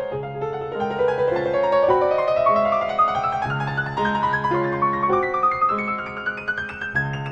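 Solo piano music: fast flowing runs of notes climbing steadily in pitch over a repeating bass line.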